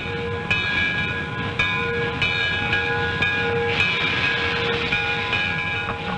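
A steam train arriving, its bell clanging in repeated strokes about once a second over the steady rumble of the train. A hiss of steam comes about four seconds in.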